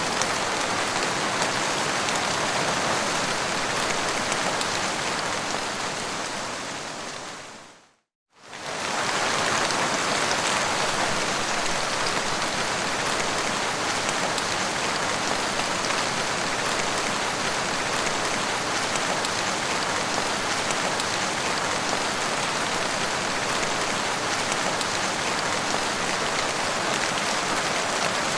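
Heavy rain falling steadily on a car's windscreen. About eight seconds in, the sound fades out to a moment of silence and straight back in.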